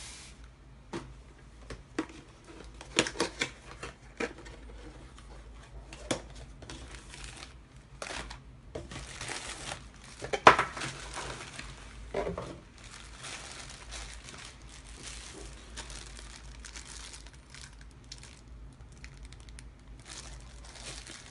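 Plastic packaging bags crinkling and cardboard box packaging being handled as small accessories are unpacked, irregular crackling with scattered sharp clicks, a cluster of them about three seconds in and the loudest crackle about halfway.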